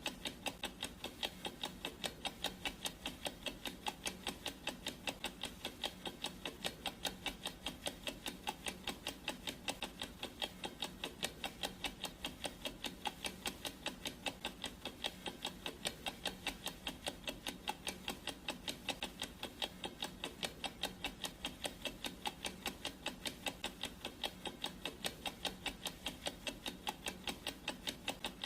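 Clock ticking sound effect: steady, evenly spaced ticks with no pause or change.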